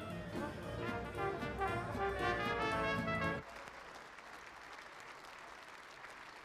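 A brass band playing a tune that stops abruptly a little past halfway. Crowd applause and noise follow at a lower level.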